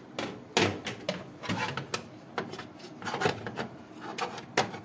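Hard drive in its mounting bracket being fitted into the drive bay of a desktop computer case: irregular clicks, knocks and scraping of metal and plastic parts, loudest about half a second in and near the end.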